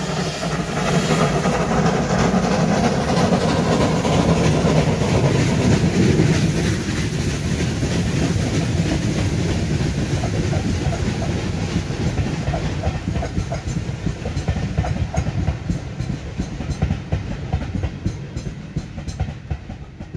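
A steam-hauled passenger train passing with two locomotives at its head, working hard. Their exhaust and running gear are loudest for the first few seconds; then the coaches' wheels clatter over the rail joints, fading slowly as the train draws away.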